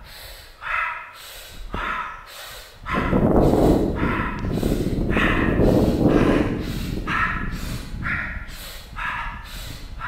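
A dog barking over and over, about once every three-quarters of a second, with a louder rushing noise in the middle, from about three to seven seconds in.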